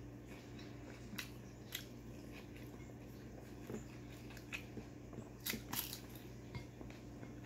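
Faint eating sounds: fried food handled by hand over a plate with soft scattered clicks, then a few crunchy bites and chewing about five and a half seconds in. A steady low hum sits underneath.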